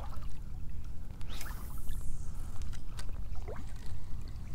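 Shallow water sloshing and splashing around the legs of a person wading, with small scattered splashes and a brief swish about a second and a half in.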